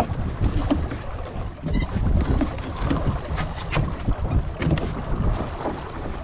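Wind buffeting the microphone over the splash and slap of water along the hull of a Hobie Holder 14 sailing dinghy under way, with scattered sharp knocks.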